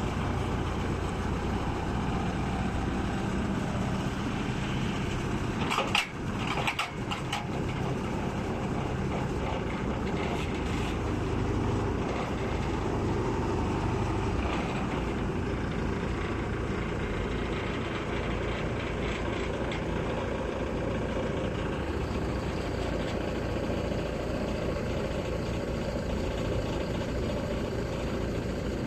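The FY300 water-well drilling rig's Yuchai diesel engine running steadily, with a brief clatter of sharp knocks about six seconds in.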